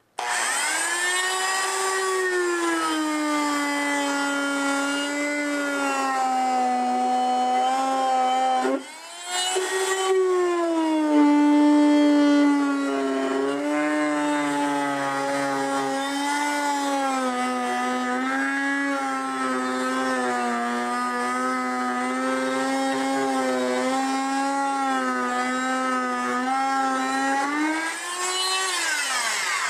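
Oscillating multi-tool buzzing as it cuts a piece out of the bottom of a baseboard molding, its pitch wavering as the blade is loaded. It stops briefly about nine seconds in, starts again, and winds down near the end.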